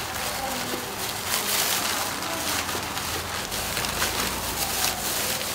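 Paper and a thin plastic bag rustling and crinkling as they are folded by hand around a batch of fresh noodles.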